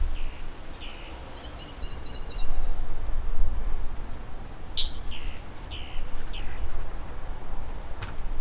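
Small birds chirping: a quick run of short high notes about two seconds in, then single sharp chirps roughly every half second from about five seconds on. Beneath them is an uneven low rumble.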